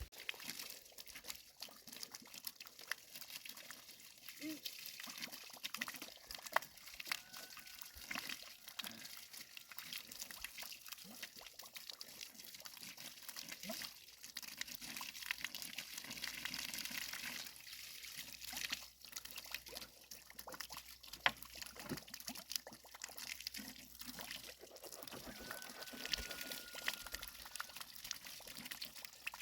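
Water pouring and trickling, with many small irregular clicks and knocks.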